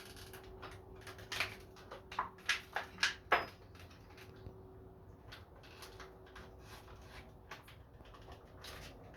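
Thread repair kit being opened and its parts handled: a quick series of clicks and knocks, mostly in the first three or four seconds, then faint light handling.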